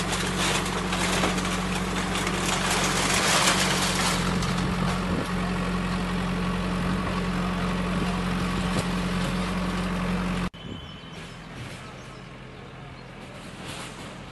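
Steady low mechanical hum under loud outdoor noise, cutting off abruptly about ten seconds in to quieter background noise.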